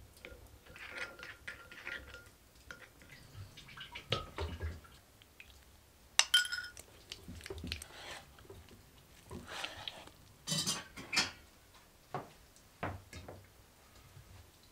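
A spoon and dishes clinking and knocking while a duck is marinated: scattered clinks and soft knocks, the loudest a bright ringing clink about six seconds in.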